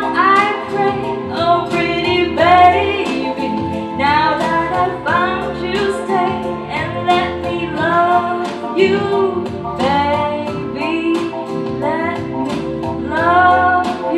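A woman singing a melody into a handheld microphone over an instrumental accompaniment, with phrases rising and falling every second or two.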